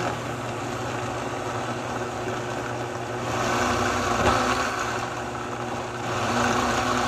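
Vitamix blender motor running steadily on a very thick roasted-hazelnut and cocoa paste, a heavy load that is beginning to stall the blender. Its sound grows louder and brighter about three seconds in.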